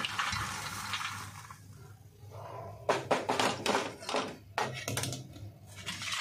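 Popped popcorn poured out of a steel pot onto a steel plate, a dry rustling pour that fades over the first second or so. About three seconds in comes a run of short knocks and rattles.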